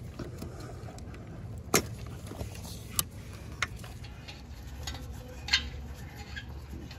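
A few sharp, isolated clicks and light taps over a low steady hum: hands working the O2 sensor's plastic wiring connector and harness. The loudest clicks come about two seconds in and again at about five and a half seconds.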